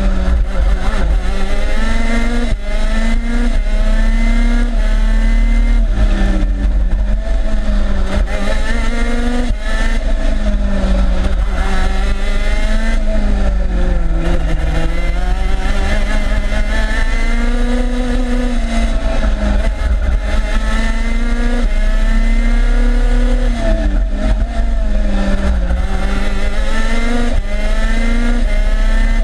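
TM 125 cc two-stroke KZ2 shifter kart engine at racing speed, heard from onboard: its pitch climbs through the gears again and again, steps down at each shift, and dips deeply about halfway through as the kart brakes for a slow corner, over a steady low rumble.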